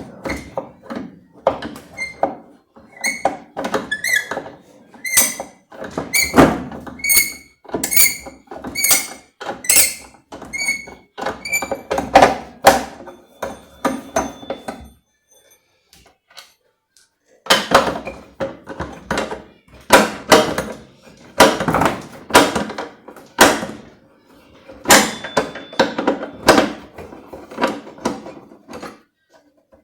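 A 13 mm wrench working the bolts loose from the plate around the washing machine's drive shaft: a run of short metal strokes about one a second, many with a brief squeak. The strokes stop for about two seconds midway, then go on.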